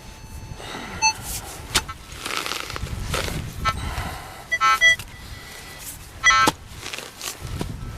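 Metal detector sounding over a buried target in short bursts of warbling electronic tone, twice loudly near the middle. Between the bursts come scraping and knocks from digging into the soil.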